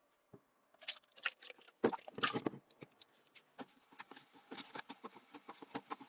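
Irregular clicks, knocks and short scraping noises, loudest in a cluster about two seconds in, then lighter rapid tapping.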